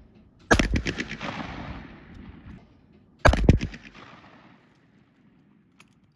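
Two shotgun shots from a Yildiz HPS Sporting fired at a trap clay: one about half a second in, the second nearly three seconds later. Each is a sharp blast followed by an echo that fades over a second or so.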